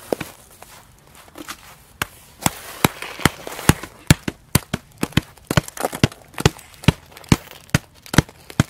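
A quick, irregular series of sharp taps, two or three a second, with a short lull about a second in.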